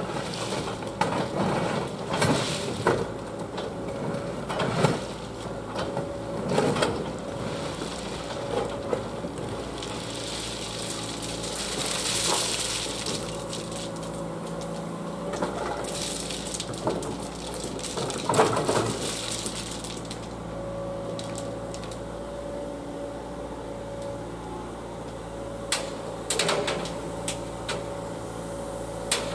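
Liebherr road-rail excavator running steadily at a track rebuild, its engine hum and a constant whine under repeated metallic clanks and knocks of work on track and ballast. About ten seconds in, a rushing hiss lasts roughly three seconds.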